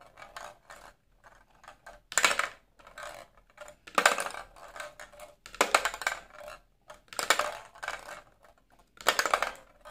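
Light plastic balls rolling and rattling across an embossed steel tray as it is tilted back and forth, in five rattling runs about every one and a half to two seconds.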